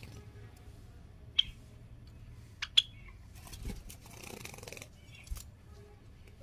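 Java sparrows making a few short, sharp clicks, the loudest about a second and a half in and a pair just under three seconds in, with softer scattered clicking after, over a faint steady low hum.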